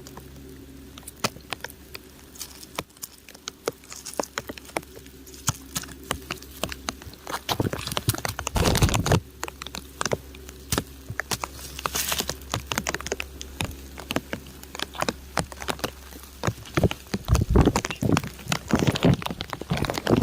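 Raindrops pattering on crumbling rock: a dense, irregular scatter of sharp ticks, with a couple of louder bursts about eight and seventeen seconds in.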